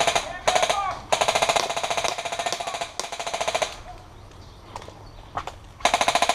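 Airsoft guns firing on full auto: two short bursts, a long burst of about two and a half seconds, a couple of single shots, then another rapid burst near the end.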